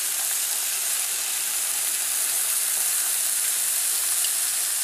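Swordfish steaks sizzling on a hot electric plancha grill plate, a steady frying hiss.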